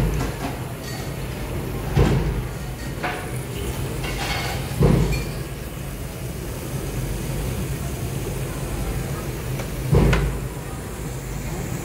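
Restaurant background: a steady low hum under faint chatter, with three dull thumps about two, five and ten seconds in.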